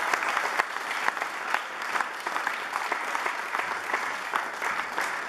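Applause: many people clapping steadily together.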